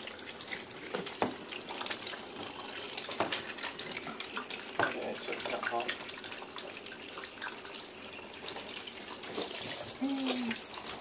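Water from a hand-held shower head spraying and splashing onto a puppy and into a bathtub, running continuously with scattered small splashes and knocks.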